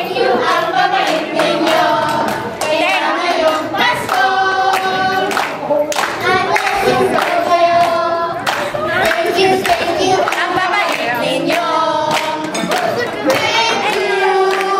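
A group of women and girls singing together into microphones, holding long notes, with hand clapping among them.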